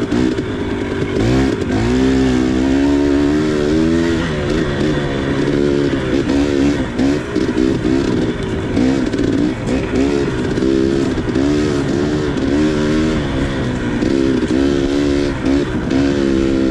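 2019 KTM 300 XC two-stroke single-cylinder dirt bike engine under way, its pitch rising and falling again and again as the throttle is opened and rolled off on the trail.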